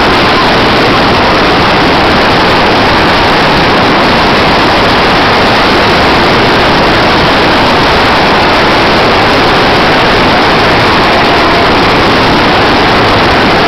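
Loud, steady rushing noise with no distinct events.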